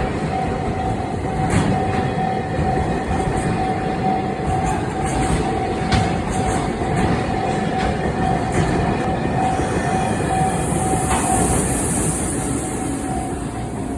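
Freight train rolling over a level crossing, its wheels clacking irregularly over rail joints, while the crossing alarm rings steadily. A high hiss rises about ten seconds in.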